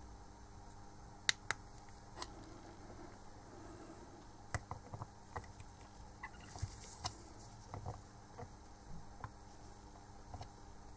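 Faint handling clicks and taps of a digital dial indicator on its stand as a gloved hand moves the gauge and its spindle: two sharp clicks about a second in, then a scatter of lighter ticks and a brief rustle in the second half.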